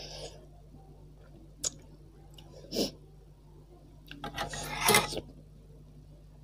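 Metal spoon clinking and scraping against a stainless steel pot of broth: a few single clicks, then a rattling scrape about four to five seconds in, the loudest part.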